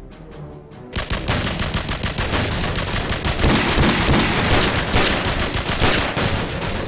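Rapid gunfire sound effects, a dense stream of many shots like a machine-gun exchange, starting abruptly about a second in over background music.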